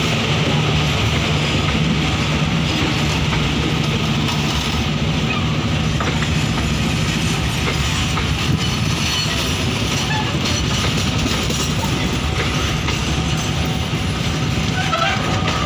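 Indonesian KA Brantas passenger train's coaches rolling past at close range: a loud, steady rumble of steel wheels on rail, with scattered clacks as the wheels cross rail joints.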